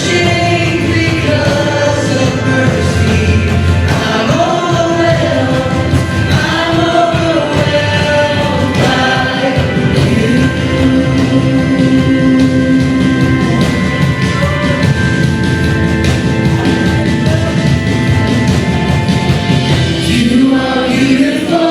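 Worship band playing with singers holding long sustained notes, in the style of contemporary gospel worship music.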